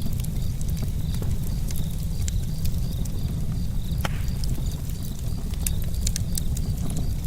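Campfire crackling: scattered sharp pops and snaps over a steady low rumble, with one louder pop about four seconds in.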